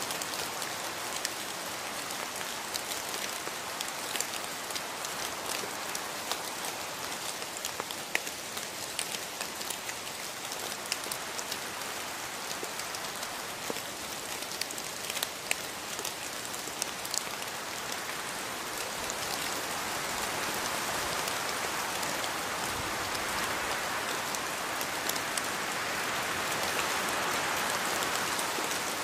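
Steady rain falling in a rainforest, a dense hiss dotted with sharp clicks of single drops. It grows a little heavier about two-thirds of the way through and again near the end.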